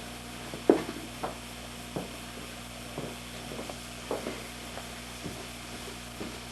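Irregular clicks and knocks from the plastic body and controls of a Magnavox EasyCam CVR630 VHS-C camcorder being handled, about eight in all, the loudest near the start. Underneath runs a steady low hum, which the owner takes for the camcorder's tape motor noise.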